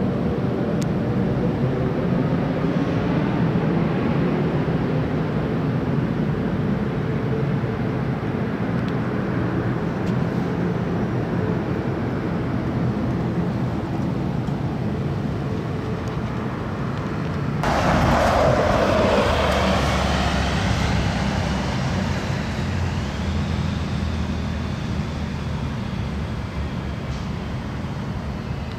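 City street traffic ambience: a steady hum of vehicle engines, with a louder surge of noise about two-thirds through, like a vehicle passing close, fading into a low rumble.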